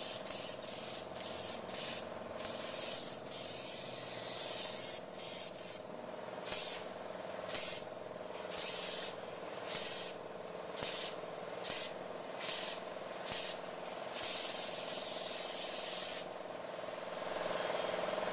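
Polyurea spray gun hissing as coating is sprayed in repeated trigger bursts. There are a few longer sprays and, in the middle, a run of short bursts about one a second, over a steady machine hum.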